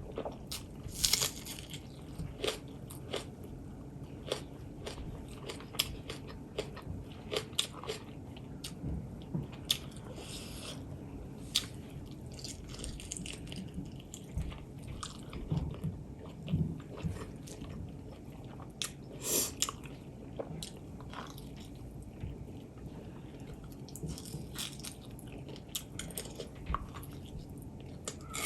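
A person chewing and biting food close to the microphone, with irregular mouth clicks and crunches.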